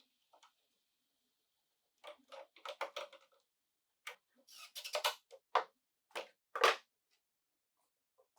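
Clamps being set and tightened on plywood workbench parts to pull a gap closed: a series of short clicks and knocks, in a quick cluster about two seconds in and then single ones over the next few seconds.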